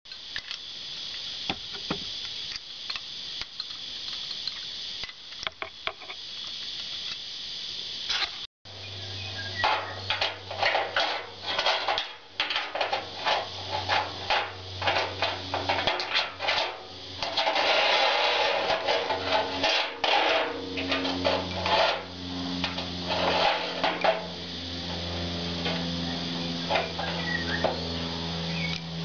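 Metal clicks, knocks and clatter as a chrome kitchen mixer tap and its braided stainless-steel hoses are handled and fitted into a sink's tap hole. After about eight seconds a low steady hum joins in under the handling noise.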